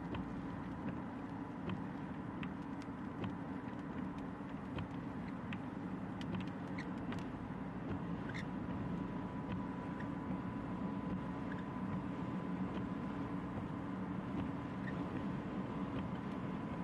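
Steady road noise inside a moving car on wet pavement: engine and tyre drone, with a faint steady whine and scattered light ticks.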